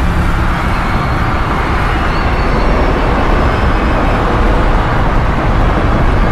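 Sound-effect mix of a large ship breaking apart: a loud, steady, deep rumble under rushing noise, with faint high thin tones drifting through the middle.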